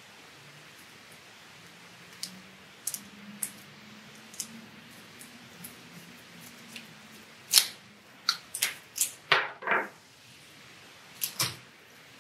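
Tape being pulled off its roll and torn, heard as a quick run of sharp rasps and clicks in the second half, with small handling clicks before it.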